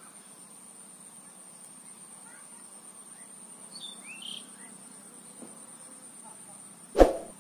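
Outdoor ambience: faint hiss under a steady high-pitched whine, with a few short bird chirps about four seconds in. A single sharp knock comes near the end.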